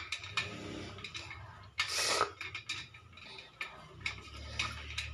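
Makeup sponges being squeezed by hand in a steel plate of soapy water: faint wet squelching with scattered small clicks, and one louder splashy squelch about two seconds in.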